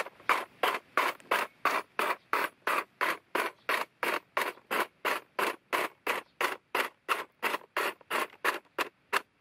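Black+Decker 18V cordless hedge trimmer's blades cutting through thin woody stems: a long, even run of short, sharp cutting strokes, about three a second.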